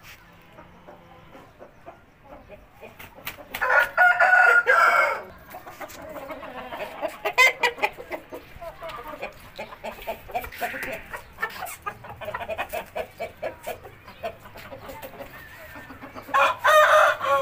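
Gamefowl rooster crowing, a loud call of about a second and a half, about three and a half seconds in and again near the end, with runs of short clucks in between.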